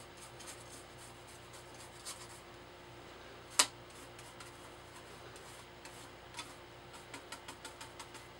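Small paintbrush scrubbing and dabbing weathering pigment powder onto a hard plastic model body: faint scratchy strokes and light ticks, with one sharp click about three and a half seconds in. A faint steady hum runs underneath.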